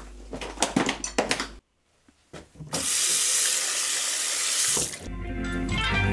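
Water from a mixer tap running into a washbasin over the hands as a steady hiss, lasting about two seconds and stopping abruptly. It comes after a few scattered clicks and knocks and a short silent gap.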